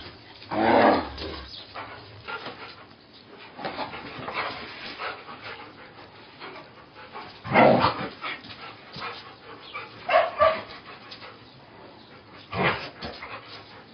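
A dog barking and yipping in short bursts: loud about a second in, again around the middle and twice more toward the end, with quieter yelps between.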